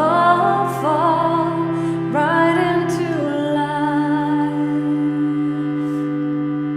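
Slow meditative music: a steady low drone under a wordless sung melody that slides up into long held notes.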